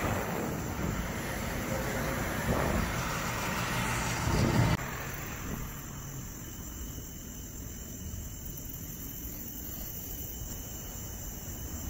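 Road traffic noise from a passing vehicle, dropping off sharply about five seconds in. After that a quieter, steady background of crickets remains.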